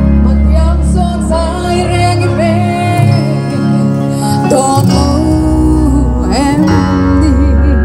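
Music: a song with a singing voice over guitar and a strong, steady bass.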